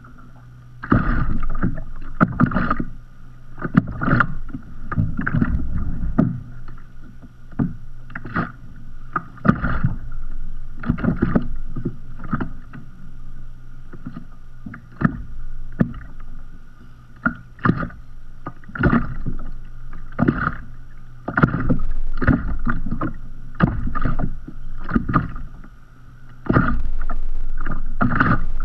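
Small sea waves lapping and slapping against a kayak's hull: irregular short splashes every half second to a second, some louder than others. Near the end the water noise turns into a louder, steadier rush for a couple of seconds.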